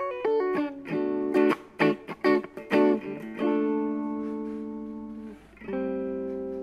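Electric guitar played alone, improvising in D. Quick picked notes and short chords for about three seconds, then a chord left to ring out and fade, and another chord struck near the end that keeps ringing.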